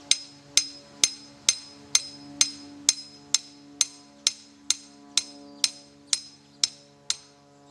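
A hammer driving a thin metal stake into the ground: steady blows about two a second, each with a bright metallic ring, stopping about seven seconds in.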